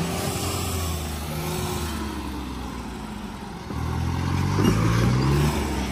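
Diesel engines of two tractors (one a John Deere) running hard under load in a tug-of-war. About 3.7 s in they get louder and the pitch rises as they rev up.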